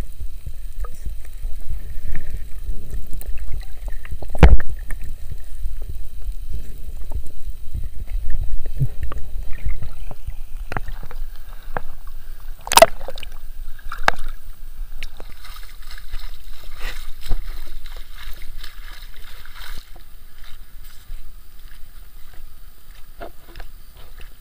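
Water heard through a submerged action camera: a steady low muffled rumble with scattered knocks, the loudest about four seconds in and another about halfway through, as the camera breaks the surface. After that comes a lighter hiss of water sloshing at the surface.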